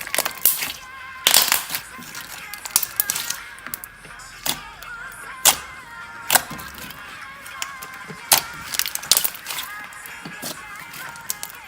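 Thick glossy slime being squeezed and pressed, its trapped air bubbles popping in irregular sharp clicks and crackles, over background music.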